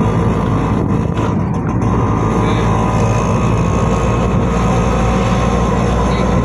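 Auto-rickshaw engine running steadily under way, a constant low hum with road noise, heard from inside the open passenger cabin.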